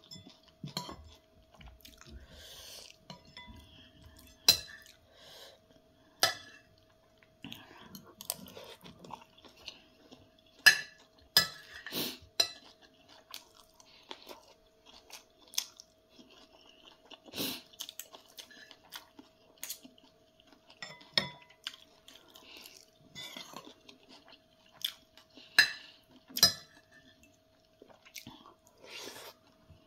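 Close-up eating sounds: chewing and mouth noises, with a metal spoon and fork clinking and scraping against a ceramic plate in irregular sharp clicks.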